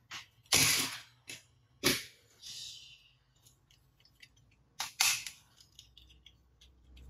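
Hard plastic toy fighter jets being handled: several clacks and knocks of plastic on plastic and on the tabletop, a brief rustle, then a run of light clicks.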